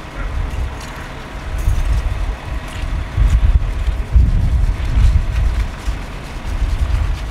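Low, uneven rumble of wind buffeting the microphone over a fire engine running, with a faint steady hum.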